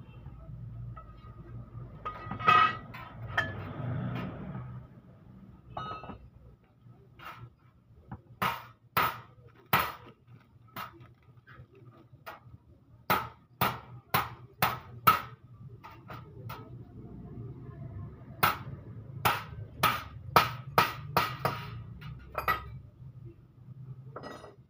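Sharp taps and clicks of work on the plastic cylinder head cover of a Toyota 2KD diesel while its injector tube seals are fitted. They come in three runs of several taps each, about two a second, starting around eight seconds in. Before that there are a few seconds of handling rustle with a clack, all over a faint steady hum.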